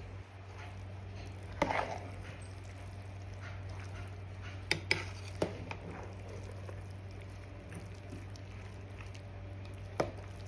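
Metal spoon stirring cooked rice in an aluminium pot, with a few sharp clinks of the spoon against the pot: one about two seconds in, a cluster around five seconds, and one near the end. A steady low hum runs underneath.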